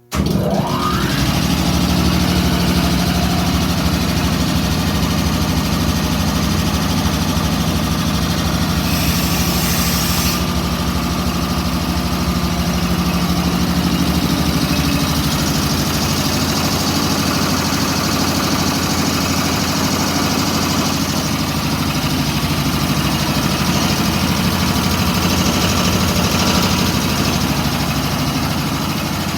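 1943 Ingersoll Rand ship-service air compressor starting up abruptly, with a rising whine in the first second as it comes up to speed, then running steadily and loudly with a strong low hum. A brief high hiss comes about nine seconds in.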